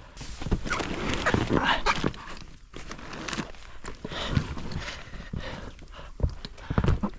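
Irregular splashing and rustling with knocks from a paddle and small boat working down a narrow stream.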